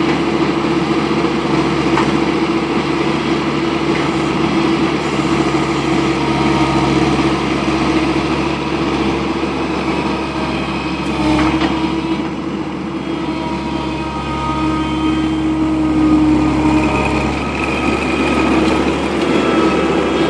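Skid steer engine running steadily, with fainter higher whining tones coming and going in the second half.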